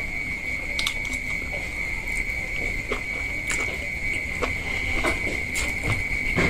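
Someone slurping and chewing glass noodles, with short, wet, irregular clicks and smacks. A steady high-pitched whine sounds in the background throughout.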